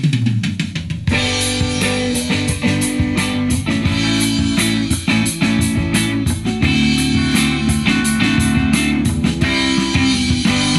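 Rock-style intro music with guitar and a drum kit; the drums come in about a second in and keep a steady beat.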